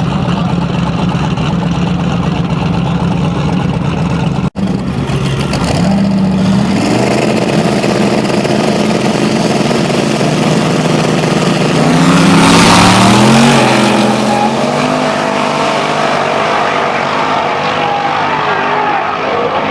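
Drag race car engines running loudly at a steady low pitch, then revving and rising in pitch as the cars accelerate hard. The loudest moment comes about twelve seconds in.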